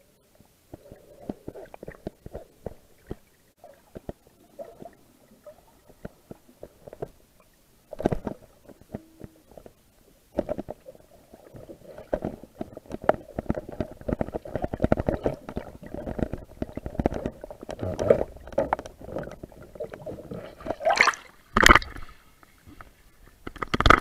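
Muffled underwater sound picked up through an action camera's waterproof housing: scattered crackles, taps and gurgling of water against the case. Near the end come a couple of loud splashes as the camera comes out of the water.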